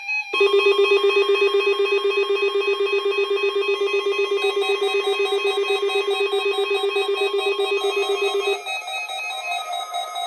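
NOAA Weather Radio test: a weather radio receiver's alarm rings with a fast, pulsing electronic tone over the station's steady warning alarm tone. Both stop about eight and a half seconds in, leaving quieter steady tones.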